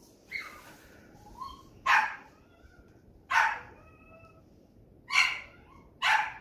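A dog barking sharply and repeatedly at a deer it is facing off with, a bark about every second and a half.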